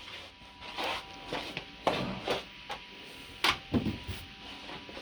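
Irregular handling noises: clicks, knocks and rubbing, the sharpest about three and a half seconds in.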